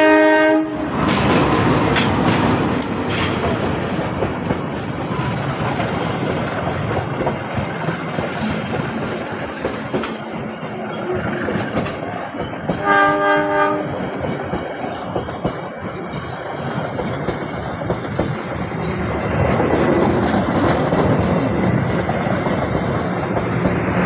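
Diesel-electric locomotive horn cutting off about a second in, then a passenger train rolling past close by, its wheels clacking over the rail joints. About 13 seconds in the horn sounds again, briefly.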